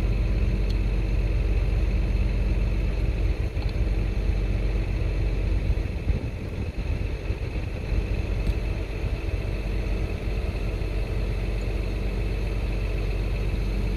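Diesel engine idling steadily, with a few faint metal clicks of hand tools on the chainsaw.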